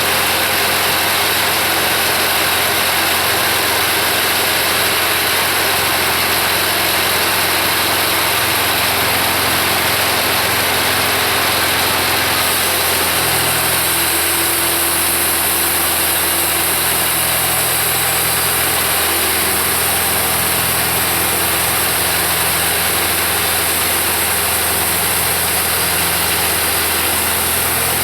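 Kubota V1305 four-cylinder diesel engine running steadily on a band sawmill. About halfway through, its note shifts and a high hiss grows louder.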